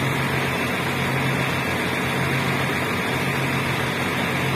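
Heavy diesel engine running steadily at idle, a constant low hum that does not change in pitch.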